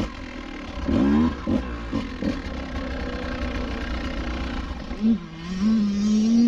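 Dirt bike engine given several quick throttle blips, the revs rising and falling in the first couple of seconds, then running more evenly. About five seconds in the revs climb and are held steady.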